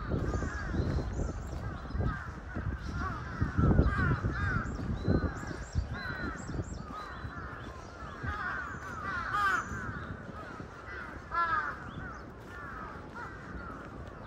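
Several crows cawing over and over, with calls overlapping throughout, over a low rumble that is strongest in the first half.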